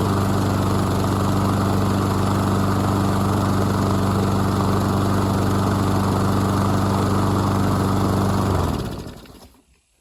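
Walk-behind lawn mower engine running steadily, then shut off near the end, dying away over about a second.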